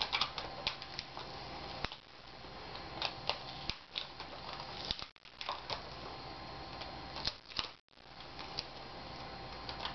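Scattered light clicks and crackles of adhesive tape being peeled off the LCD video cable on the back of a laptop screen panel, over a steady faint hiss.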